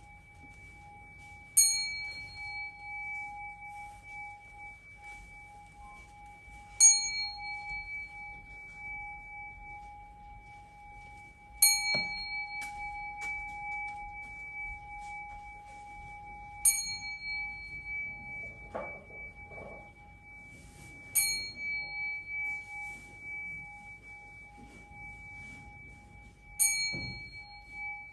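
Small hand-held Buddhist temple bell struck six times, about every five seconds, each a sharp, clear ding that rings on briefly. A steady high tone holds underneath throughout.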